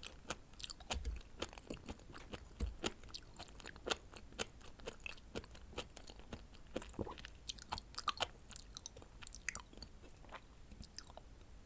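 Close-miked chewing of raw shrimp and scallop sashimi: a run of short, irregular mouth clicks and smacks.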